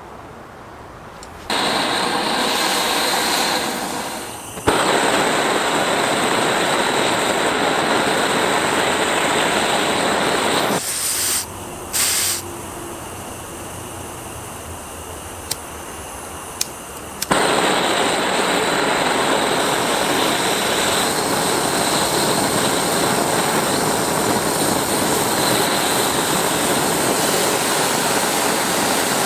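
Aerosol freeze spray hissing in long continuous blasts. It starts a second or two in, stops about eleven seconds in apart from two short puffs, and starts again about seventeen seconds in.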